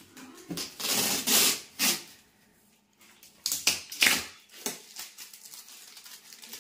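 Plastic stretch wrap on a cardboard mattress box being pulled and peeled away by hand, in several crinkly, ripping bursts of noise. The loudest come about one to two seconds in and again around four seconds.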